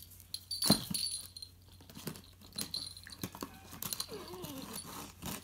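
A Border Collie puppy scuffling with a cat on a tile floor: irregular knocks and clicks of paws and claws on the tiles, light metallic jingling, and a short whine about four seconds in.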